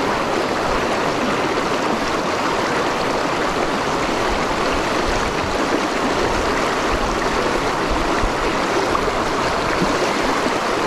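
Fast river current rushing steadily over a submerged rock ledge, breaking into whitewater along its edge.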